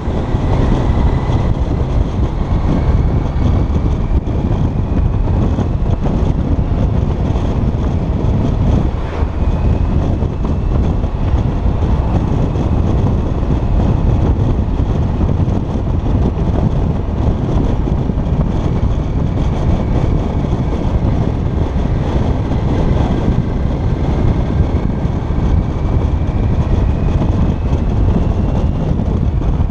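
Motorcycle ride heard from a helmet-mounted camera: steady wind rushing over the microphone, with the sport-touring bike's engine running underneath. A faint whine rises slowly in pitch twice.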